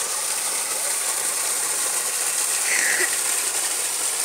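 Irrigation pump water gushing from a bent steel outlet pipe into an earthen channel: a steady hiss of rushing, splashing water.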